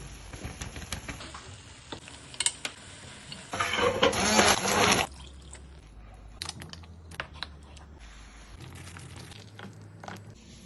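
Kitchen sounds: scattered light clicks and knocks of utensils, with a loud burst of running or pouring liquid lasting about a second and a half near the middle.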